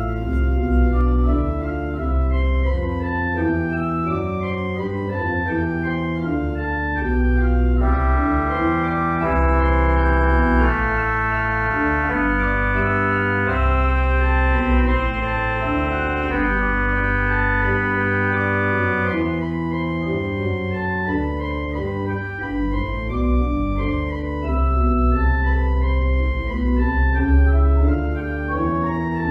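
Church organ playing a three-voice trio, with a deep bass line played on the pedals under moving upper voices.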